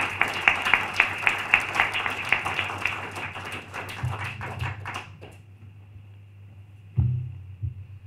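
Audience applauding, dying away about five seconds in, followed by a single soft knock near the end.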